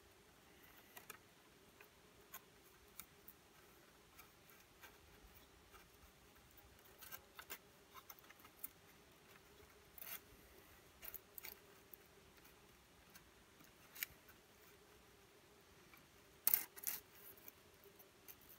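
Faint, scattered clicks and light scrapes of a thin stick being woven over and under the lashed wooden poles of a stick grate, with a cluster of louder clicks near the end.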